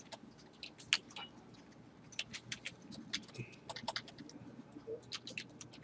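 Slow, uneven typing on a computer keyboard: single keystrokes with short pauses between them.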